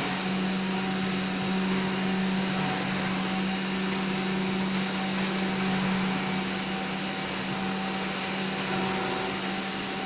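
Electric drive motor of a remote-controlled telescopic car garage running with a steady hum as it moves the canopy sections.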